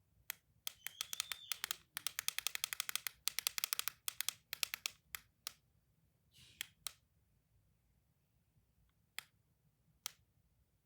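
Toys being clicked close to the microphone: rapid runs of sharp clicks, about a dozen a second, for the first few seconds, then scattered single clicks, a brief soft rustle near the middle and two lone clicks near the end.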